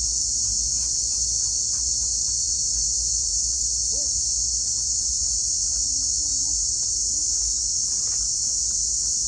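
Steady, high-pitched chorus of insects, without a break.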